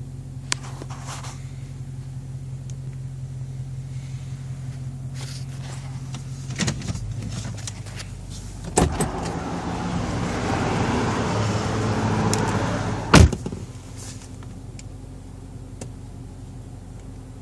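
2011 Dodge Charger R/T's 5.7-litre Hemi V8 running with a steady low hum, heard inside the cabin. About halfway through, a sharp knock is followed by a few seconds of louder rushing noise that ends in a second sharp knock, and then the steady hum returns.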